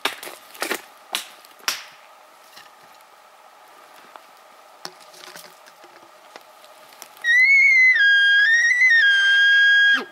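Bull elk bugling: a loud, high whistling call about three seconds long begins a few seconds before the end, wavering at first and then dropping to a held, steady pitch. Before it, a few sharp snaps in the first two seconds.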